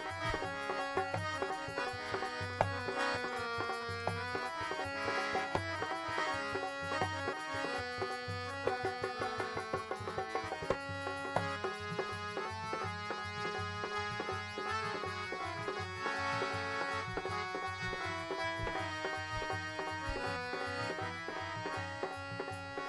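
Harmonium playing a melody of held, stepping notes over a steady dholak drum beat, with no singing: an instrumental interlude in a Punjabi devotional song.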